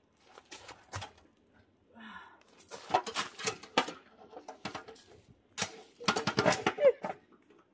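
Metal clinking and rattling from a small portable charcoal barbecue grill as it is handled, in several quick bursts of clicks.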